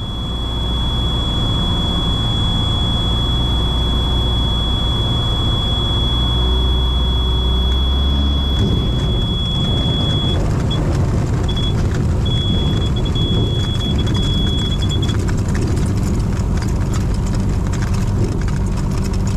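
Cessna 170's six-cylinder Continental engine running at low power through a landing, under a steady high-pitched stall warning horn that breaks up and stops a little past the middle. From touchdown, about eight seconds in, the tyres rumble and crunch over gravel as the plane rolls out.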